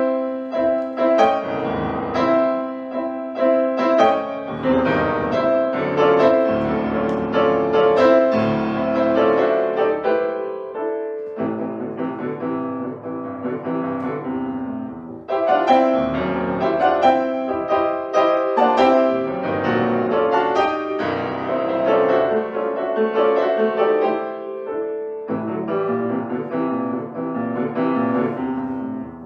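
Grand piano played solo: dense chords and runs in loud phrases, with short breaks between phrases about eleven, fifteen and twenty-five seconds in.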